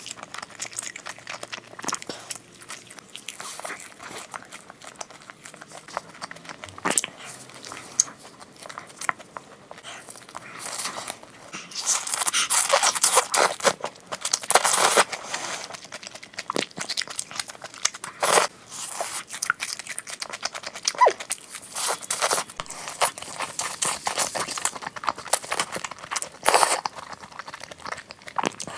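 Crunching and chewing of fried skewers close to the microphone: irregular crisp crackles of bites, louder and denser in the second half.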